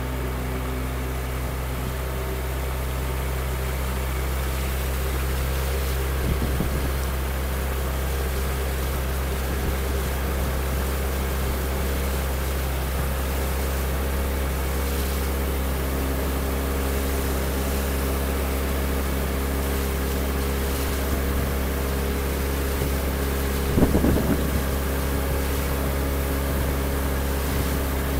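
Motorboat engine running at a steady speed while under way, over a haze of rushing water and wind. Two brief thumps break through, a small one about six seconds in and a louder one near the end.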